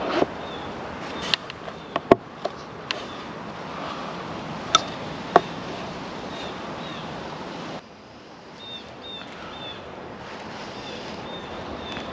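Scattered sharp clicks and taps, a few of them ringing briefly, from the solar panel's mounting hardware being handled and fitted, over a steady background with faint repeated chirps. The background noise drops suddenly about eight seconds in.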